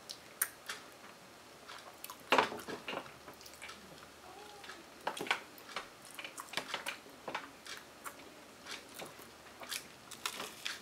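Eating a toasted-waffle ice cream sandwich: scattered crisp crunches, mouth smacks and chewing, heard closely, in short clusters, with a fresh bite near the end.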